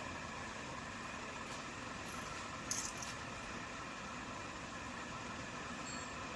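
Steady background hum, with a few faint clicks and a short jangly rattle about three seconds in.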